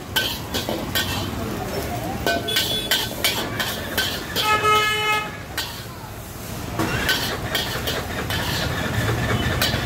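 Long metal ladle knocking and scraping against a large iron wok as fried rice is stir-fried, in a run of short clanks. A vehicle horn honks once for about half a second around the middle, over steady street rumble.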